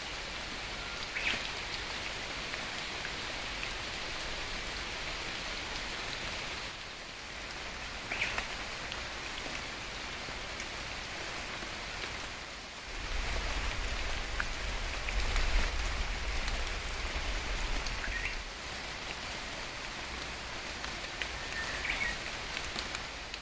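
Steady rain falling, with a low rumble that swells in the middle and fades again, and a few short high sounds scattered through it.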